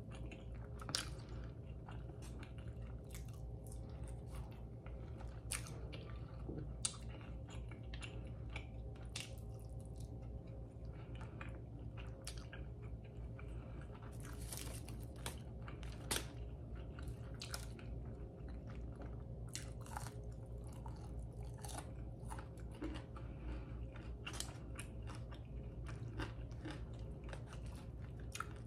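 Close-miked chewing and mouth sounds of a person eating pancakes and crisp bacon, with many small crunches and sharp clicks, over a steady low hum.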